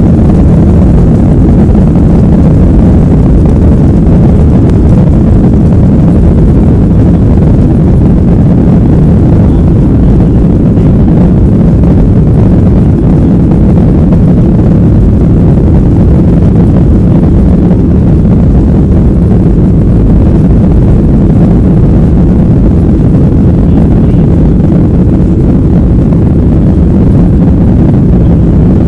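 Boeing 737 airliner's jet engines running steadily, heard inside the cabin as a loud, even low rumble with no change in pitch.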